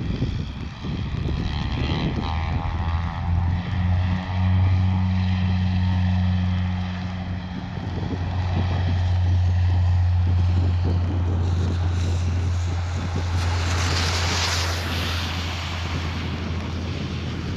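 Twin-turboprop airliner running at high power on its take-off run, a steady low propeller drone that swells in the middle and slowly fades. Wind gusts on the microphone about fourteen seconds in.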